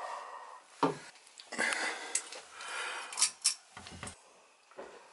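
Handling noise from a handheld camera being moved: a string of short, sharp clicks and knocks with some rubbing between them.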